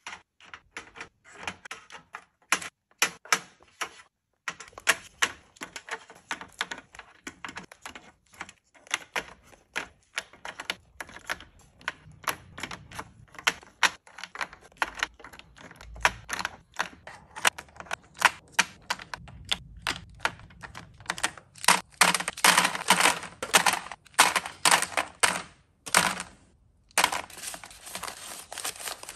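Small plastic capsules and lidded cups being set down one after another into a plastic drawer organizer: a rapid, irregular run of light clicks and taps. The clicks grow louder and denser about two-thirds of the way through.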